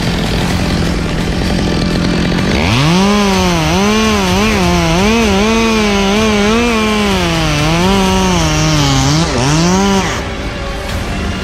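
Chainsaw revving up about two and a half seconds in and running at high speed, its pitch dipping and recovering as it works under load, with one deeper dip near the end before it cuts off.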